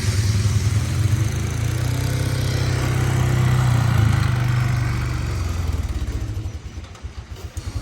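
An engine running steadily with a low hum, dropping away about six and a half seconds in and picking up again at the very end.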